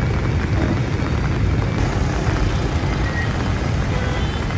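Vehicles driving through floodwater on a city street: steady traffic noise of engines and tyres pushing through standing water, with a heavy low rumble throughout.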